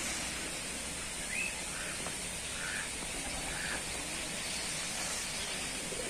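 Steady background hiss of open air with a few faint, short bird calls in the first four seconds.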